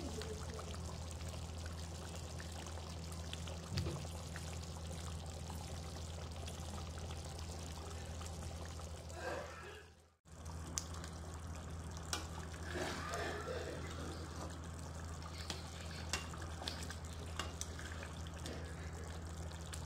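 Thick mustard fish curry simmering in a pan, with small bubbling pops and crackles over a steady low hum. The sound cuts out briefly about ten seconds in.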